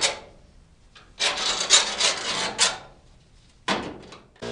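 Scribe scratching along sheet metal as it traces around a patch panel held on a car's lower cowl. A scrape of about a second and a half made of several strokes comes about a second in, and a brief one follows near the end.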